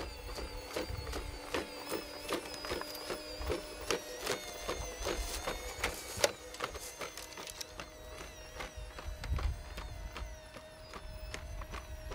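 Four-legged walking robot running with a steady mechanical whine, overlaid by a rapid, irregular clatter of clicks as it walks.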